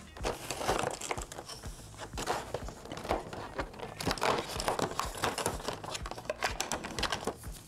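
Cardboard door of a Balea beauty advent calendar being torn open by hand, with the packaging inside crinkled and rustled: a run of irregular crackling and tearing.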